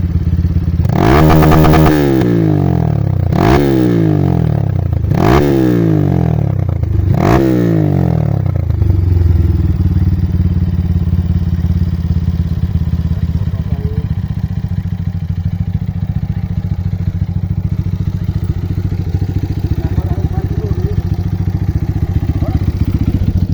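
Single-cylinder Honda motorcycle engine blipped hard four times, each rev shooting up to the rev limiter and dropping back, the first held about a second at the cut; then it settles into a steady idle.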